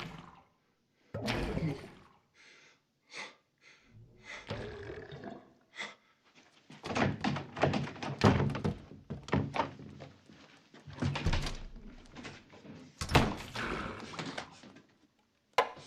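A stomach growling and gurgling: irregular low rumbles in bursts with short pauses between them, coming thickest in the middle.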